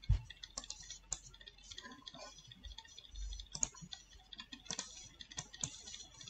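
Irregular clicks of a computer keyboard and mouse as values are typed in and menu items selected, with one louder knock just after the start.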